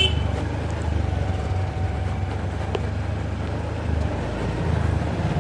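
A car's engine and road rumble heard from inside the cabin as it moves slowly, a steady low drone.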